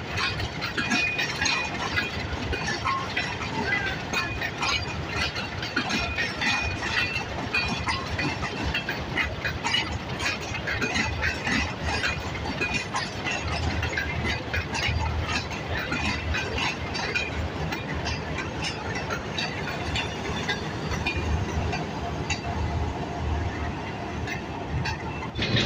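Passenger coaches rolling past at close range, steel wheels clicking and clanking over rail joints and points, with a thin squeal in the first few seconds. A low drone joins about halfway.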